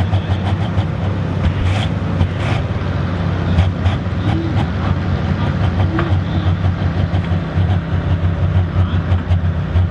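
Pro Stock pulling tractor's turbocharged diesel engine running at a steady low speed, a deep rumble that wavers slightly in level.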